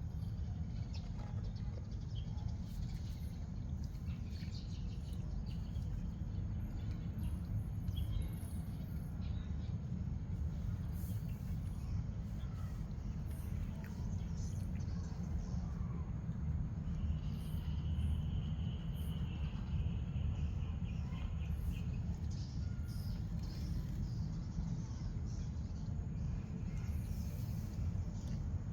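Steady low background rumble of outdoor ambience, with faint scattered chirps and clicks and, a little past the middle, a faint high steady call lasting a few seconds, like a bird or insect.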